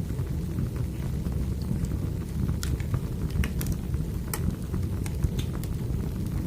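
Firewood burning: a steady low rumble from the flames, with scattered sharp pops and crackles.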